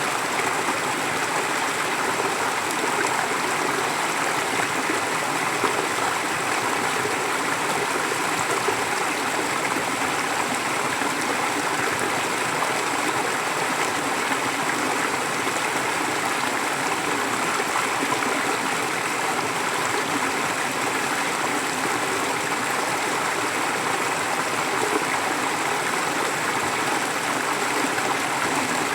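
Forest stream flowing in a steady, even rush of water.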